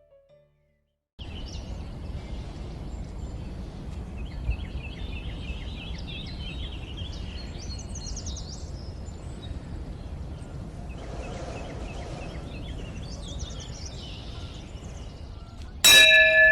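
Outdoor ambience of birds chirping over a steady low rumble, starting about a second in after silence. Near the end a loud bell-like chime strikes and keeps ringing.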